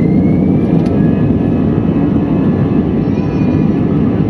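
Airbus A320-200 jet engines heard from inside the cabin: a loud, steady rumble with a whine that rises in pitch for about the first second and then holds, typical of the engines spooling up for the takeoff run.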